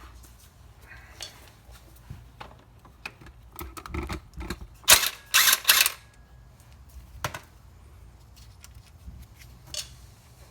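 Impact wrench in two short bursts about five seconds in, spinning off the 10 mm bolt that holds the A/C compressor's clutch plate, with scattered clicks and taps of tools around it.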